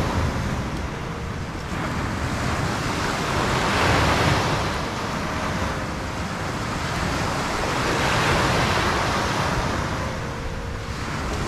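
Surf breaking on a mixed sand-and-shingle beach, swelling and easing as waves come in, louder about four and eight seconds in, with some wind on the microphone.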